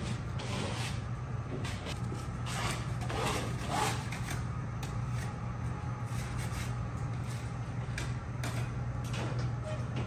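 Work-site noise: a steady low hum under scattered knocks and scrapes, busiest a few seconds in.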